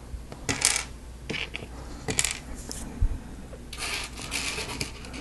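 Small hard plastic Lego Technic pieces clicking and clattering as they are handled, in several short bursts, with a longer rattle about four seconds in.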